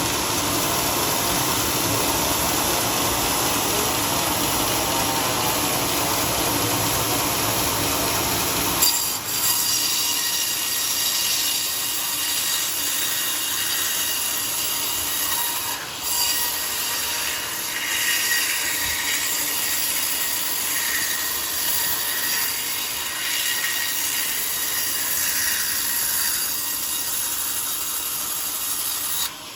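Bandsaw mill sawing a coconut palm log: a continuous high hiss and whine of the blade in the wood. At first a deep motor hum runs under it; about nine seconds in the hum drops away, leaving the thinner, higher sawing sound.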